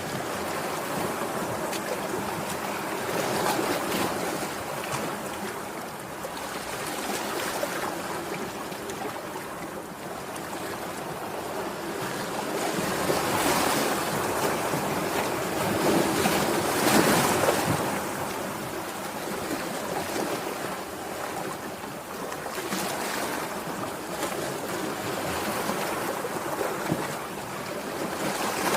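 Sea waves washing onto the shore: a steady surf hiss that swells and ebbs every few seconds, strongest a little past the middle.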